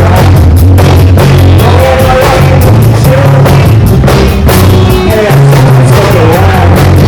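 Loud live rock band playing, with a drum kit keeping a fast, steady beat over bass and guitar.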